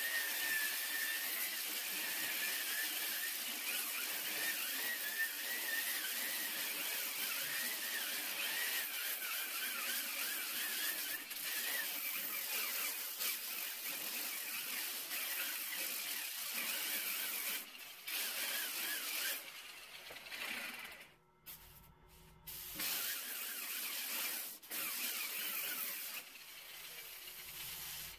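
Right-angle electric sander-polisher with a sanding disc grinding against the steel panel of a van door. Its motor whine wavers as the pressure on the disc changes. The sound breaks off briefly about two-thirds of the way through, comes back, then runs quieter near the end.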